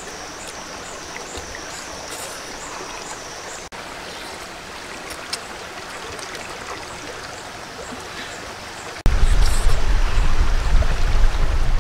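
Steady rushing of running water, like a stream, with faint high chirps repeating near the start. About nine seconds in the sound jumps abruptly to a much louder rushing with a heavy deep rumble.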